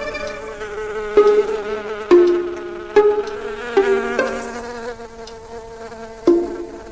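Cartoon insect buzzing, like a fly's drone: one buzzing tone that jumps to a new pitch with a sharp attack about six times, about once a second, and grows fainter toward the end.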